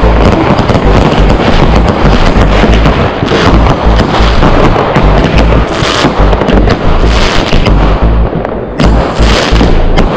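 A loud, unbroken barrage of fireworks: aerial shells and rockets burst one after another in a dense run of bangs and crackles, with no pause.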